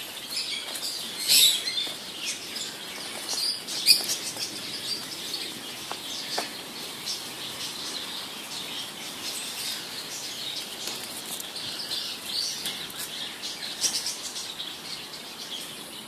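Birds chirping in short, high calls scattered throughout, with the loudest calls about a second and a half and four seconds in.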